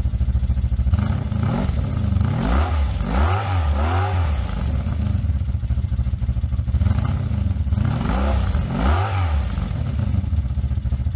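Honda motorcycle engine idling and being revved: a few quick throttle blips in a row, then a pause at idle, then another pair of blips.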